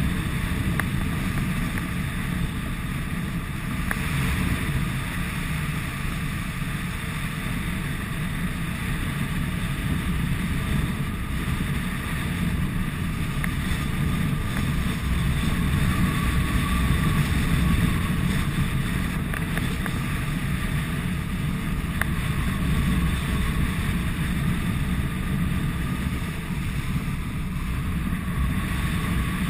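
Steady rush of airflow over a camera mounted on the wing of an Icaro RX2 rigid-wing hang glider in flight, with a faint high whistle running through it.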